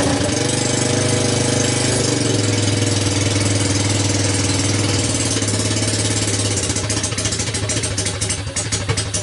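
Kymco 125 cc single-cylinder ATV engine running on a homemade CDI ignition. Its speed drops in two steps over the first couple of seconds, then it idles steadily, and from about seven seconds in the idle turns uneven and choppy.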